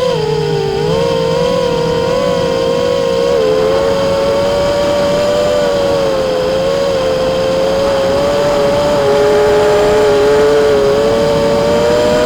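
Brushless motors of an FPV quadcopter whining at a steady cruising throttle, two slightly different pitches that wander up and down a little.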